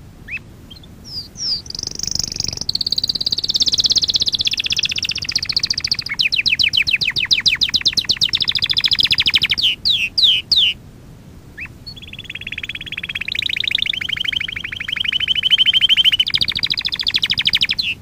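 Domestic canary singing a long run of fast trills and rolling phrases of rapidly repeated high notes. It breaks off briefly about ten seconds in, then starts a new rolling phrase.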